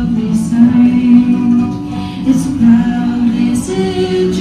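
Music with a singing voice: held, sung notes over accompaniment at a steady level.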